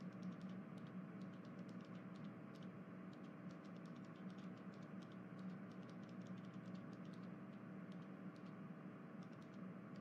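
Faint room tone: a steady low hum with scattered light clicks coming in irregular clusters.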